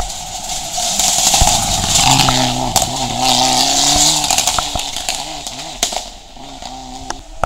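Mitsubishi Lancer Evolution rally car's engine at full effort through a hairpin, its pitch rising and falling as the driver works the throttle and gears. It swells about a second in, then fades as the car pulls away, with a few sharp cracks along the way.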